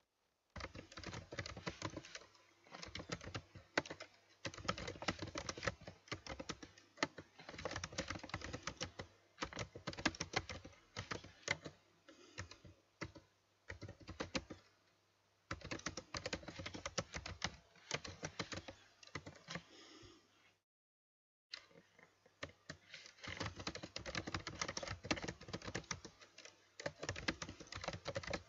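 Computer keyboard typing in quick, irregular bursts of keystrokes with short pauses between them, broken by about a second of silence roughly two-thirds of the way through.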